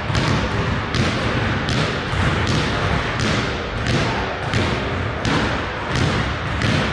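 Two basketballs dribbled at once on a hardwood gym floor: a steady run of loud bounces, about one every three quarters of a second.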